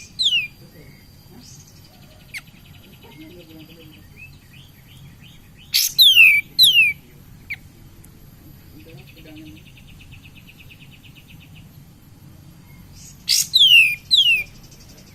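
Kapas tembak singing in full voice: loud bursts of two or three sharp whistled notes that slide steeply down in pitch, three times, with a softer rapid buzzing trill between the bursts. It is a lure song of the kind played to get other kapas tembak to sing.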